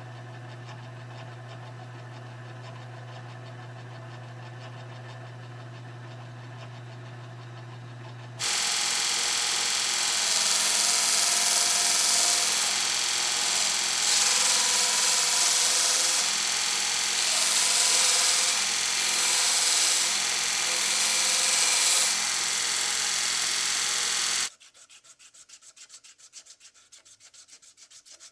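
Sanding while finishing a knife. A steady low hum gives way, about eight seconds in, to a loud, rough sanding hiss that rises and falls. The hiss cuts off suddenly about twenty-four seconds in, and faint, quick rubbing strokes follow.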